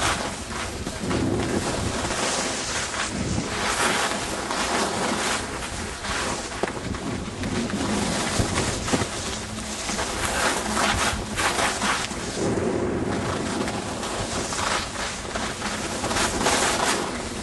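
Wind buffeting the microphone and the hiss and scrape of skis on the snow while skiing downhill, swelling and easing every few seconds.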